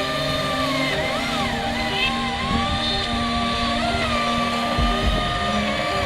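Engine running steadily, its pitch rising and falling briefly twice, with background music.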